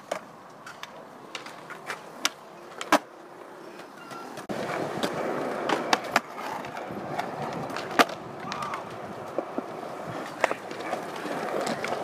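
Skateboard wheels rolling over a concrete skatepark surface, getting louder about four and a half seconds in. Sharp clacks of boards striking the ground are scattered through, the loudest about three and eight seconds in.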